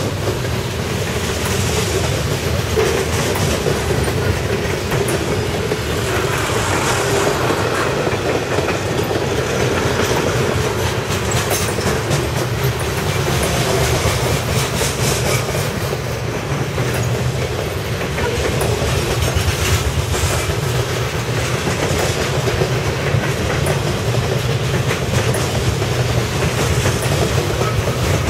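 Freight cars of a CSX train rolling past close by: a steady rumble of steel wheels on rail, with clicking as the wheels pass over rail joints.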